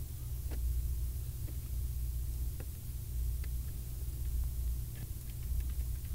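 Steady low background rumble, with a few faint scattered clicks and taps from a Phillips screwdriver and hand working on screws and parts inside an ATM's control panel.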